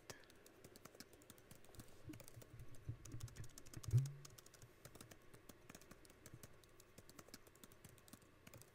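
Typing on a computer keyboard: a quick, uneven run of key clicks, with a short low hum about four seconds in.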